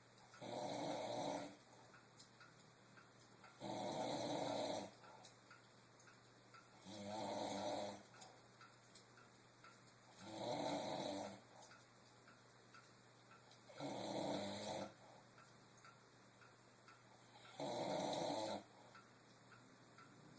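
A sleeper snoring: six snores, each about a second long, coming about every three and a half seconds.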